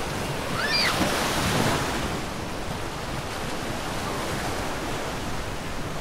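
Small ocean waves breaking and washing up the shore in a steady rush of surf, louder for the first two seconds, with wind buffeting the microphone. A brief high-pitched voice cuts through about a second in.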